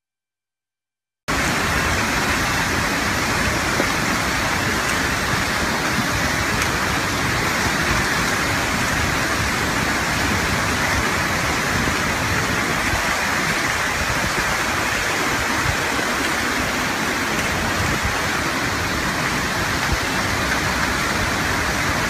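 Steady rushing of torrential water, a dense unbroken noise that cuts in abruptly about a second in.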